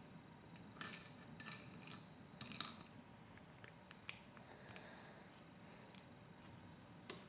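Loose plastic Lego Technic pieces clicking and clattering as they are handled, a cluster of sharp clicks in the first three seconds, then a few sparse light ticks.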